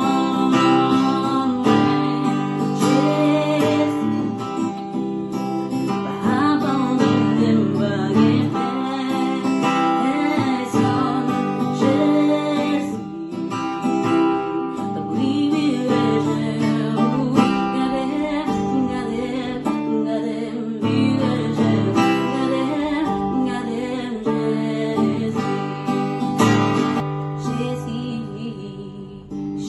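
Woman singing while strumming an acoustic guitar.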